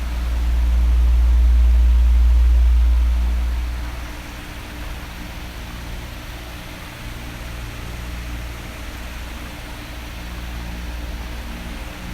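Oscillating electric fan running with a steady whoosh of air and a faint motor hum. A low rumble of moving air swells over the first few seconds, fades, and rises again near the end as the fan head sweeps past.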